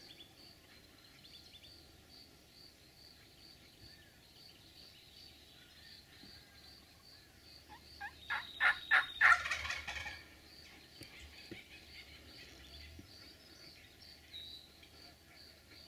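Wild turkey gobbler gobbling once, a loud rapid rattling gobble lasting about two seconds, a little over halfway through.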